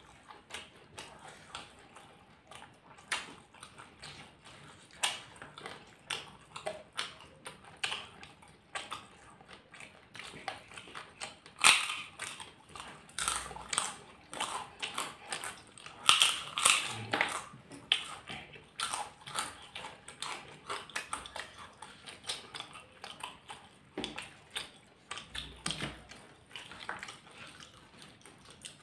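Close-up chewing and mouth sounds of people eating rice by hand, with crunching of fried crackers (kerupuk) and fingers picking rice off a wooden board. There are many short clicks and crunches, with louder bouts of crunching about twelve and sixteen seconds in.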